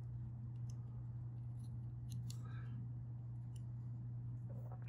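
Faint, scattered ticks and small crackles as a soldering iron tip works a tinned copper wire end, over a steady low hum.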